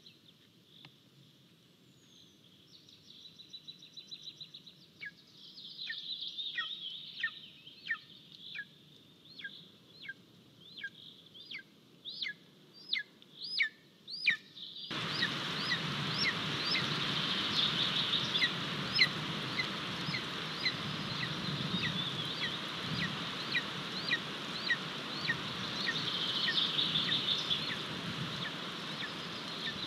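Golden eaglet giving a long series of short, sharp, high-pitched begging calls, about one to two a second, growing louder over the first half. About halfway a steady rushing noise starts suddenly and the calls carry on over it.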